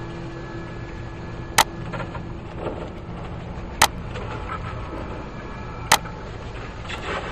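Three sharp mouse clicks about two seconds apart, pressing a browser's refresh button, over a steady background hum.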